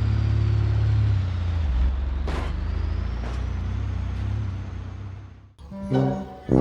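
Heavy truck's engine running steadily with a short air-brake hiss about two seconds in; the engine sound fades and cuts off about five and a half seconds in. Music with plucked strings comes in near the end.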